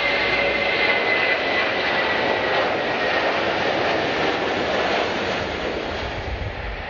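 Airliner's engines roaring past with a high whine that slowly drops in pitch, the sound fading a little near the end.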